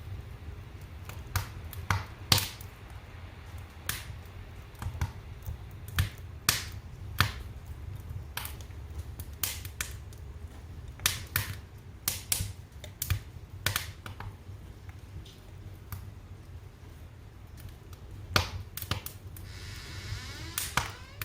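Fire in a fireplace crackling: irregular sharp pops and snaps over a steady low rumble.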